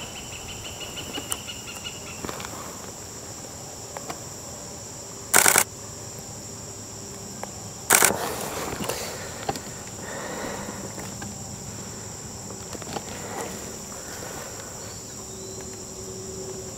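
Steady high-pitched chorus of insects, with two brief loud clicks about five and eight seconds in.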